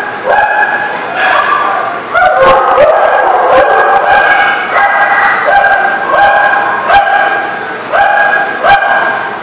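Dogs barking repeatedly in a quick series, with short sharp clicks in between.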